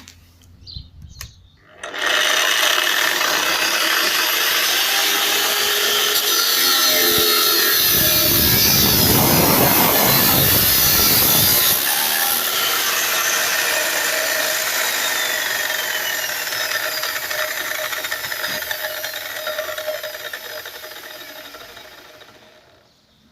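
Large 230 mm angle grinder starting up and running at full speed, with a heavier, fuller sound for a few seconds around the middle as it bears into a cut. It is then switched off and the disc coasts down slowly, the whine falling in pitch and fading.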